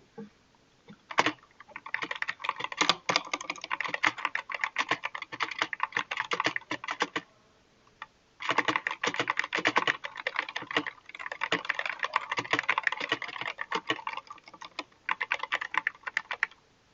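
Fast typing on an SK61 keyboard with optical red (linear) switches: quick runs of key clacks that stop briefly about seven seconds in and again shortly before the end.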